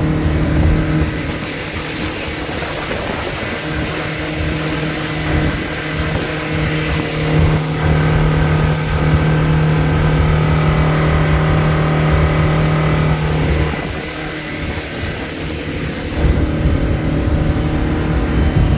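Yamaha four-stroke outboard running at speed on a planing boat, a steady engine note over a continuous rushing noise. About two-thirds of the way through, the engine note and level ease off for a couple of seconds, then pick back up.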